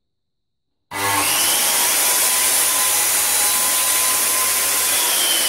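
Corded circular saw running and cutting a wooden bar to length. It starts abruptly about a second in as a loud, steady whine over cutting noise, and the whine drops slightly in pitch near the end.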